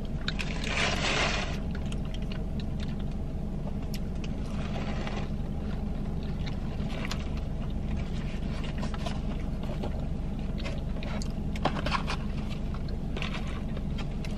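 Steady low hum of a car idling, heard from inside the cabin, with brief rustles and a few small clicks of paper fast-food packaging being handled.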